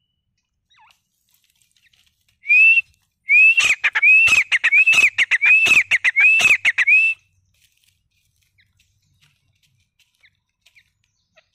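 Grey francolin calling loudly: one short note, then about a second later a fast run of six repeated rising-and-falling notes with harsh clicks between them, lasting about four seconds.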